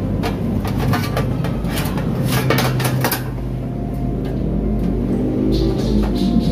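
Metal clicks and clatter of cooking gear being handled at a grill, over a steady low hum. Music comes in near the end.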